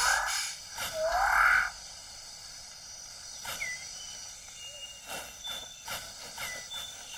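Rainforest wildlife: two loud, rough rising animal calls in the first two seconds, then a quieter steady forest background with a few short high whistled notes.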